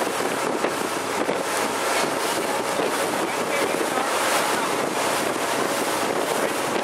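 Steady rush of wind buffeting the microphone and water washing past the hull of a moving motorboat.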